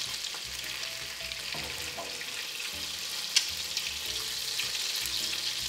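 Two eggs frying in hot olive oil in a nonstick pan, a steady sizzle as a metal spoon works the oil beside them. One sharp click about three and a half seconds in.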